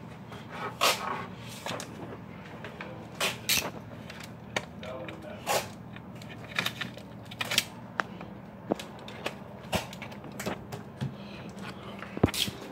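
A dozen or more short knocks and clicks at uneven intervals, the sound of objects being handled and bumped, over a low steady hum.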